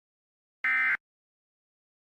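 Emergency Alert System end-of-message (EOM) data burst: a single short digital screech of about a third of a second, a little under a second in. It is the last of three identical bursts that mark the end of the alert.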